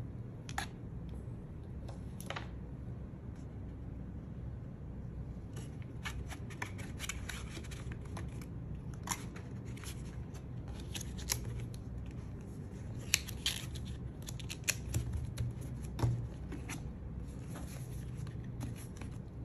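Paper and cardboard packaging being handled and folded: a string of short crinkles, taps and scrapes, sparse at first and thick through the second half, over a steady low background noise.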